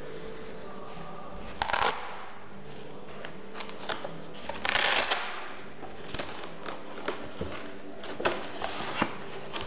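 Hands handling the fabric organiser in the lid of a Zero Halliburton aluminium laptop briefcase: scattered light clicks and taps, with a rustling scrape about two seconds in and a longer one about five seconds in.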